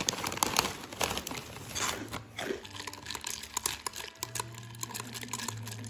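Foil snack bag of Nongshim Po-Stick potato sticks crinkling as a hand rummages inside it, with scattered sharp crackles.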